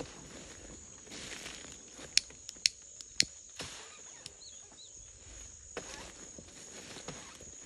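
Steady high-pitched drone of insects, with three sharp clicks between about two and three seconds in and a couple of faint bird chirps a little later.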